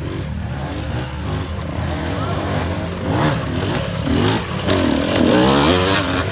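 Dirt bike engine blipping the throttle in short rising-and-falling revs as it picks its way over a rock bed, loudest about five seconds in as the bike passes close, over a steady low engine hum.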